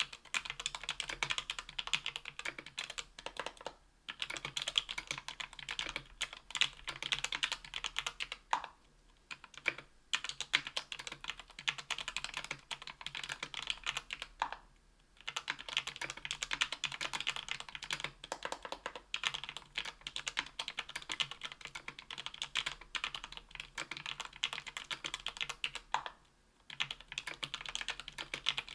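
Steady fast typing on a keyboard with lubed JWK H1 linear switches (78 g), an aluminum plate and case, and GMK keycaps: a dense run of keystrokes that breaks off in short pauses a few times.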